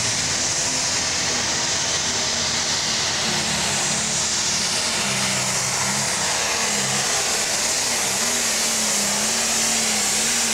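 Turbocharged diesel engine of a green John Deere pro stock pulling tractor running flat out under full load as it drags the weight-transfer sled down the track. The engine note is loud and steady, its pitch wavering slightly in the last few seconds.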